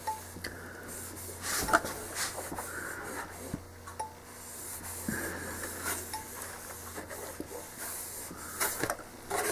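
A covering sealing iron sliding and pressing over heat-shrink film on a balsa model airplane: soft rubbing and scraping with scattered light clicks and taps, over a faint low hum that stops about eight seconds in.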